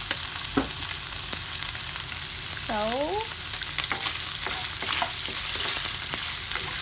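Pieces of pork sizzling in hot cooking oil in a pan, the water boiled off. A steady hiss runs under many scattered short pops and clicks.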